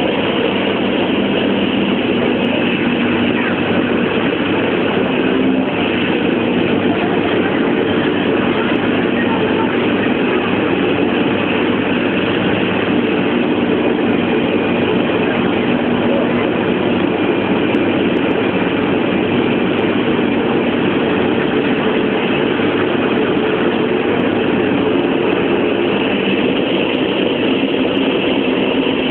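Hovercraft engines and propellers running at a steady, loud drone with a few constant hum tones, heard from inside the passenger cabin.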